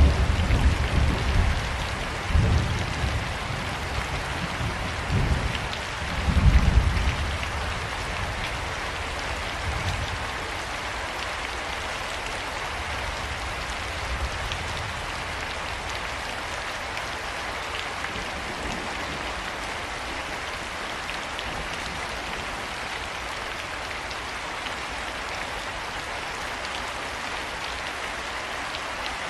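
Steady rain falling, with rolling thunder rumbling loudly over the first several seconds and dying away, leaving the even hiss of rain.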